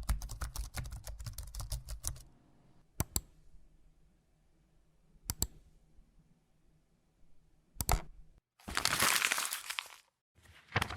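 A string of short sound effects: a rapid run of clicks and crackles over a low rumble for about two seconds, then several single sharp clicks a few seconds apart, then a burst of dense crackling near the end.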